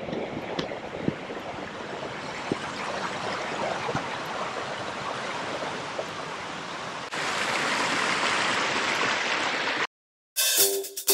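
Steady rushing of a stream, which gets louder and brighter about seven seconds in. It cuts off just before the end, and electronic intro music starts.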